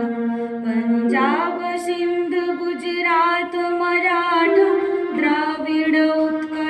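A woman singing a slow melody to her own electronic keyboard accompaniment, with long held notes under the voice. The held notes step up in pitch about a second in and shift again near the middle.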